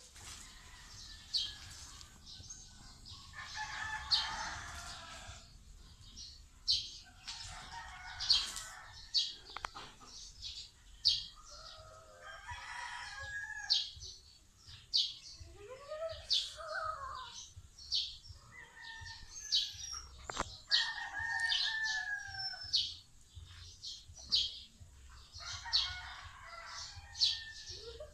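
Roosters crowing several times over a small bird's steady, high chirping, about one chirp a second.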